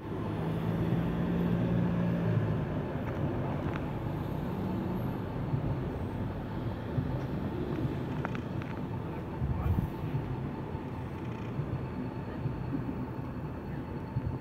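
Street traffic noise: a steady urban rumble, with a vehicle engine's low hum strongest in the first few seconds.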